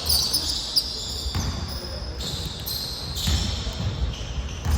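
Basketball bouncing on a gym floor during play, a series of low thumps, with short high squeaks over it.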